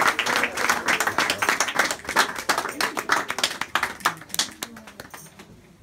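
A small audience applauding by hand, the claps thinning out and dying away over the last second or so.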